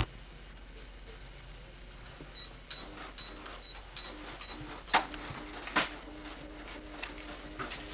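Electronic cash register beeping six times quickly, then a low, evenly pulsing buzz like a receipt printer running, with two sharp clicks about five and six seconds in.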